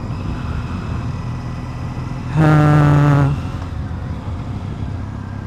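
Motorcycle horn on a Triumph Bonneville T100 sounding once, a steady single-pitched beep just under a second long, about two and a half seconds in. Underneath it runs the steady noise of the bike's parallel-twin engine and the road while riding.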